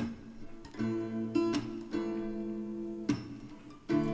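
Background music: a gentle acoustic guitar strumming a slow sequence of chords, each held about a second, in an instrumental gap between sung lines.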